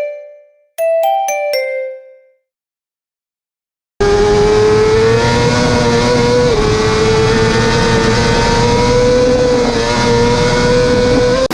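A short chime jingle plays twice, then after a brief gap a small minibike engine runs at high revs, its pitch holding steady with small wavers.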